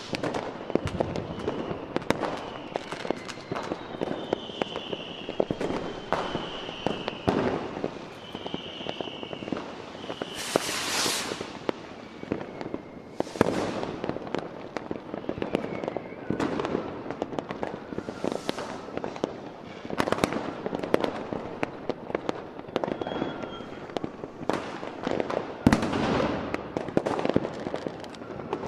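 Fireworks display: a steady run of bangs and crackles from bursting shells, with high whistling tones in the first ten seconds and a hiss lasting about a second around eleven seconds in.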